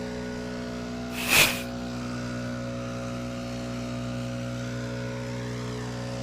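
An engine running steadily, with one short, loud whoosh of noise about a second and a half in.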